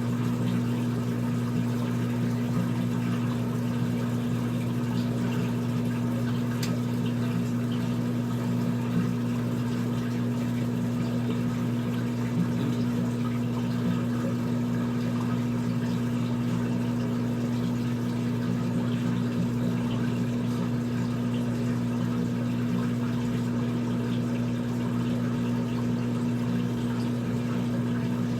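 Drain pump of a front-loading washing machine running steadily, a constant low hum as it pumps water out of the tub.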